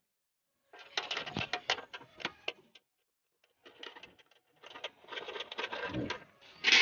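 A cow eating dry, crumbly cattle feed from a bowl: crackly munching and rustling as its muzzle works through the feed, in two spells with short gaps between. A short, louder burst comes near the end.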